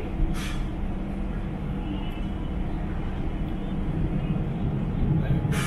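Steady low engine rumble with a faint constant hum. Two brief hissing sounds come about half a second in and again near the end.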